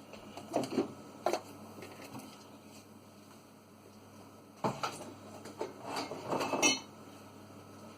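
Food containers and jars knocked and set down while a fridge is emptied: a few short knocks in the first second and a half, then a busier run of knocks and clinks about five to seven seconds in, ending on the loudest, briefly ringing clink.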